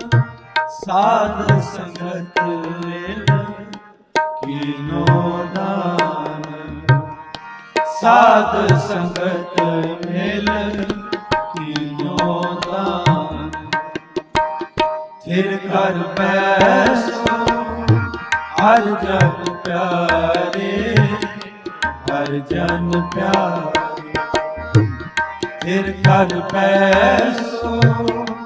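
Instrumental passage of Sikh kirtan: tabla playing a steady rhythm under a harmonium melody, which runs in phrases with short breaks.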